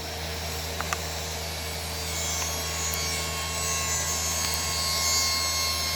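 Steady hum and whine of a running motorized machine, growing slightly louder after about two seconds, with two faint clicks about a second in.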